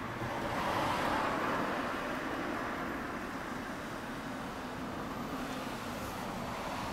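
Yamaha TZR250 (3MA) two-stroke parallel-twin engine idling steadily, swelling a little about a second in.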